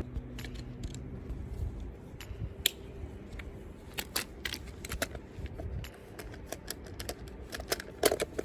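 Irregular light clicks and taps of a chainsaw's plastic air filter and cover being handled and knocked during cleaning.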